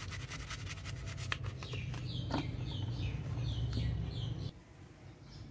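A small brush scrubbing a plastic grinder housing in soapy water, in quick rapid strokes. From about two seconds in a small bird chirps over it, a run of short falling chirps. Both cut off abruptly near the end.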